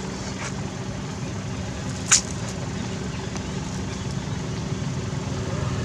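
A motor engine running steadily at a low, even hum, with one brief sharp high-pitched click or squeak about two seconds in.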